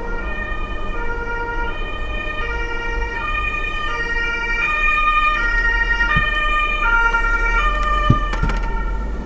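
Police car siren in two-tone mode, alternating between a high and a low note about every 0.7 seconds. It grows louder toward the middle and then eases off as it passes. A light knock comes about eight seconds in.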